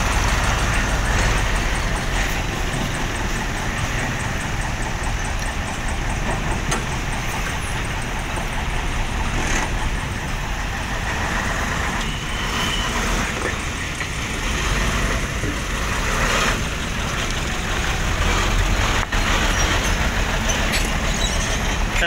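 Diesel engines of a Hyundai tracked excavator and a dump truck running steadily at a dig, with a few short knocks as the bucket works and loads mud into the truck bed.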